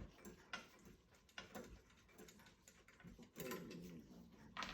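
Faint, scattered light clicks and taps of small brass clock-movement parts and tools being handled during dismantling.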